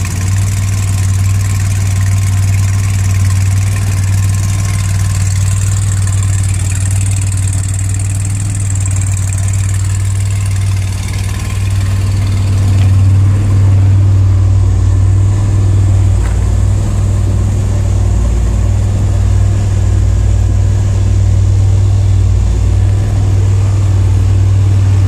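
DeLorean DMC-12's PRV V6 idling steadily through an aftermarket ceramic-coated DPI exhaust with cat-delete test pipes. About halfway through the sound turns deeper and a little louder.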